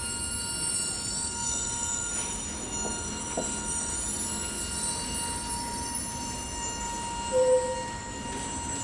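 Chamber ensemble sustaining quiet, steady high ringing tones at several pitches at once. A short lower note sounds about seven and a half seconds in, the loudest moment.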